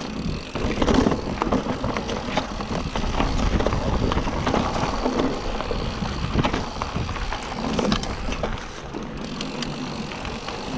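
Bicycle rolling fast downhill, rattling and knocking irregularly over rough ground, over a steady low rumble.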